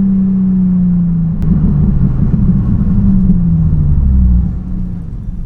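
Nissan 350Z's 3.5-litre V6 engine running on the road, its pitch slowly falling, growing louder and rougher about a second and a half in, then dropping off shortly before the end as the throttle eases.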